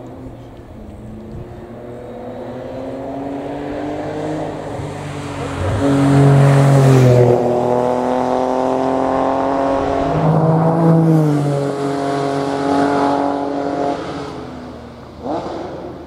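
Hillclimb racing car accelerating hard past, its engine note climbing to its loudest about six seconds in. The pitch drops briefly twice, around seven and ten seconds in, as it changes up through the gears, then the sound fades away up the hill.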